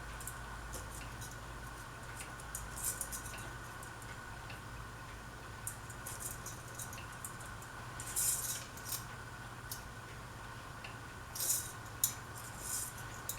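Ceiling fan running with a steady motor hum, and irregular light clicks and ticks that come in small clusters, the loudest about two-thirds and four-fifths of the way through.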